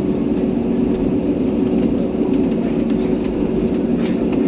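Steady drone of an airliner's engines and rushing air heard inside the passenger cabin, a constant hum with a few faint light ticks.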